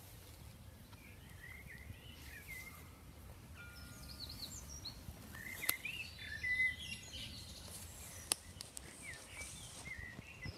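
Birds chirping and singing, short gliding notes scattered throughout, over a low steady outdoor rumble, with two sharp clicks, one near the middle and one a few seconds later.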